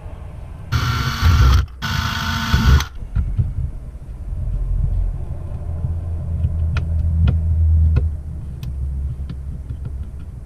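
Small Dremel-type rotary cutout tool running in two short bursts of about a second each, near the start. After that comes a low rumble with a few sharp clicks and knocks.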